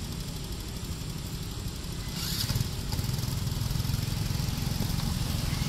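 Road traffic: a vehicle engine running steadily, its low rumble growing louder after about two seconds, with one short noisy burst around the same time.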